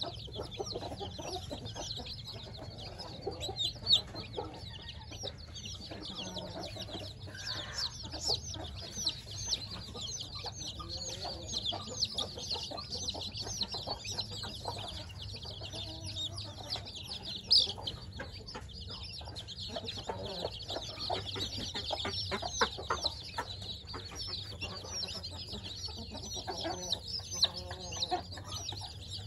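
A brood of week-old chicks peeping nonstop, many short high cheeps overlapping, with a few lower calls mixed in. Two brief sharp clicks stand out, a few seconds in and past the middle.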